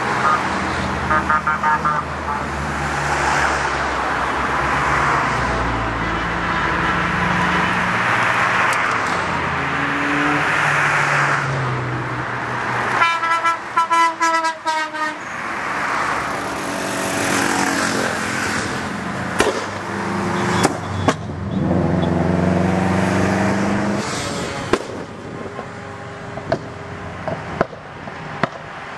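A steady stream of cars driving past, with engine and tyre noise, and car horns tooting: a run of short beeps about halfway through and a longer blast a few seconds later.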